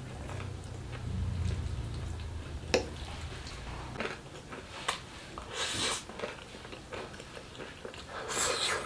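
Close-up eating sounds: chewing and biting a mouthful of instant noodles cooked in full cream milk, with a few sharp clicks and two short rushing noises, one about halfway and one near the end.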